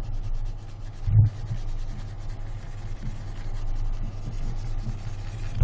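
A steady low electrical hum with faint rubbing as the sculpting strokes are drawn by hand. There is one soft thump about a second in.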